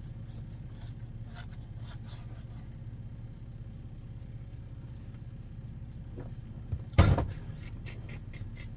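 Steady low mechanical hum, with scattered light clicks and knocks and one loud thump about seven seconds in.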